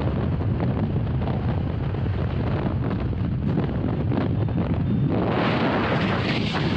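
Wind buffeting the microphone: a steady low rumble with uneven gusts. About five seconds in, a brighter hiss joins it.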